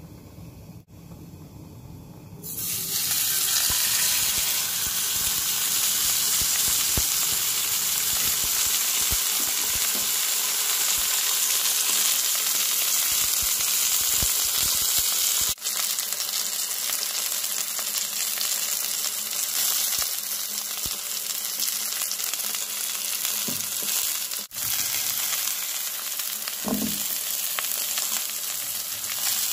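Thick beef sirloin steak sizzling in hot oil in a frying pan. The sizzle starts suddenly about two seconds in, then runs as a steady loud hiss, broken twice for an instant.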